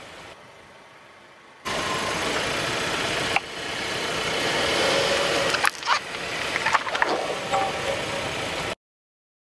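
A car creeping on asphalt: steady engine and tyre noise that comes in abruptly a couple of seconds in. A few sharp clicks and crackles come from under the tyre as it rolls onto a blue spiky rubber ball. The sound cuts off suddenly near the end.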